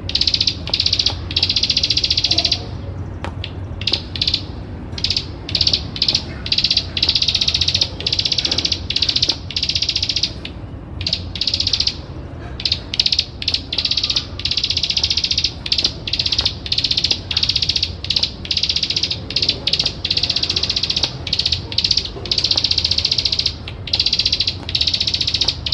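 Plain prinia (ciblek sawah) singing high-pitched, fast rattling trills, one after another in bursts of under a second to about two seconds with short gaps, over a steady low hum.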